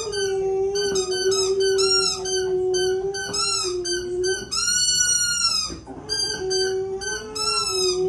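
Dogs howling: one long, steady howl held for about six seconds, breaking off briefly and starting again, with shorter, higher wavering howls over it.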